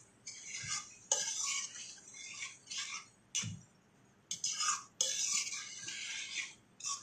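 Metal spoon scraping and stirring brinjal masala in a stainless steel pan, in a series of short strokes with brief pauses.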